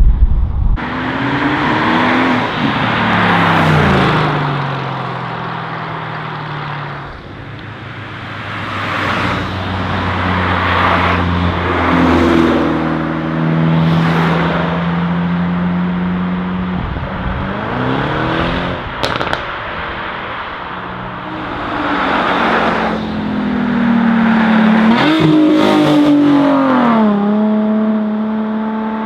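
Several sports cars driving past one after another, their engines revving hard as they accelerate, each engine note dropping in pitch as the car goes by. One sharp crack is heard about two-thirds of the way through.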